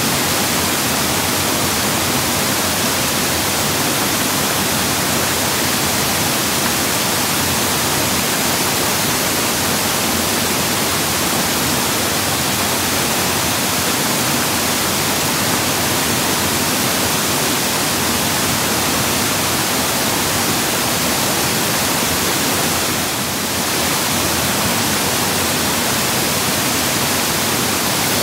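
Mountain stream rushing, a loud, steady hiss of running water that dips briefly about two-thirds of the way through.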